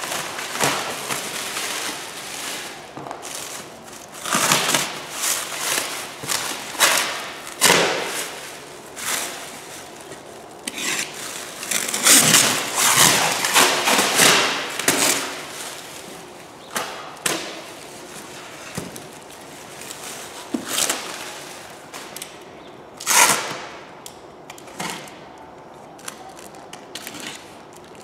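A cardboard parcel being opened and unpacked by hand: irregular rustling, scraping and tearing of cardboard and packing material, with occasional knocks and thumps as contents are handled.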